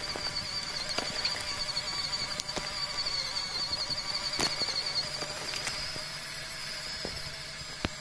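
MN99S 1/12-scale RC crawler driving over dry leaves and twigs: irregular sharp crackles and snaps of litter under the tyres over a steady, wavering high-pitched whine.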